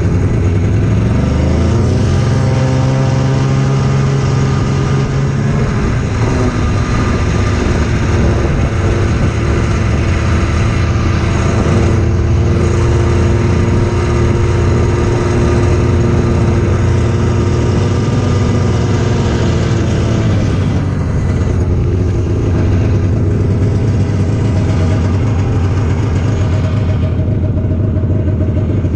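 Snowmobile engine running under way. Its pitch rises as it speeds up about two seconds in, holds steady, then falls as it eases off about twenty seconds in.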